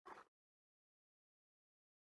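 Near silence: one brief faint sound right at the start, then dead quiet.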